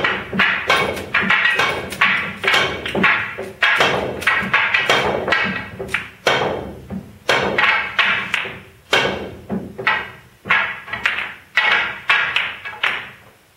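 Background music of short ringing notes, about two to three a second, that fades out near the end.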